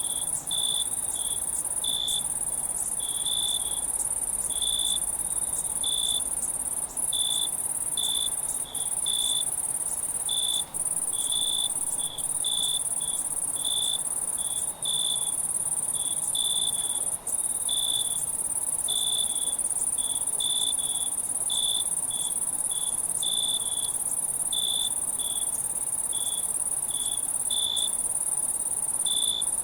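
Night insect chorus: crickets chirping in short pulses, about two a second, over a steady high-pitched insect trill.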